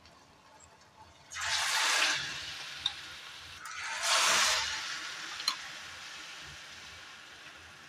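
Hot oil sizzling up as batter-coated potato pakodas are dropped into a frying pan, twice: about a second in and again about four seconds in. Each surge settles into a quieter, steady frying hiss, with a light click or two.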